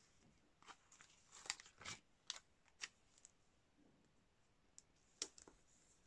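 Faint crackles and rustles of a kraft paper bag being handled and a round number sticker pressed onto it: a handful of short, sharp paper sounds, most in the first three seconds and one more around five seconds in.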